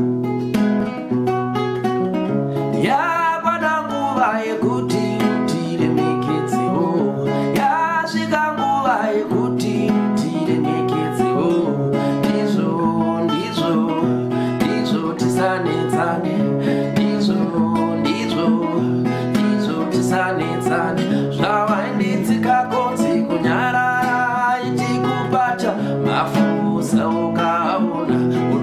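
Acoustic guitar with a capo, played in a steady chord pattern, with a man singing over it at times.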